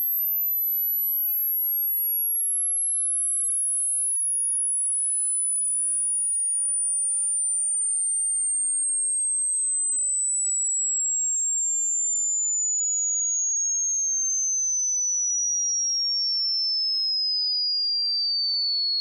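A single pure sine test tone gliding steadily down in pitch, from about 12,300 Hz to about 4,800 Hz. It is a high-frequency hearing-test sweep: the listener stops at the point where the tone first becomes audible.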